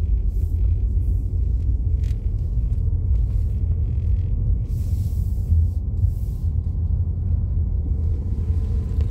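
Steady low rumble of a car's engine and tyres, heard from inside the cabin as it drives.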